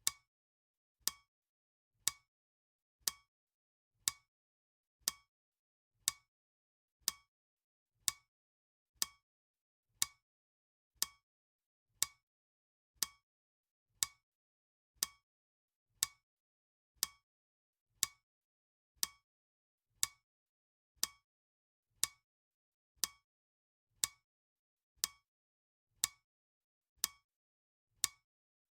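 Clock-tick sound effect of a countdown timer, one crisp tick every second, evenly spaced with silence between.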